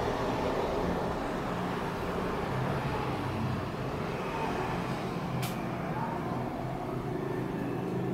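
Steady low background rumble with a faint wavering hum, and one short sharp click about five and a half seconds in.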